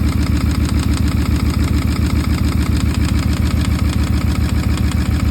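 Porsche Cayenne 955 4.5-litre V8 idling with a steady, regular knock from the engine, the sign of scored cylinder walls.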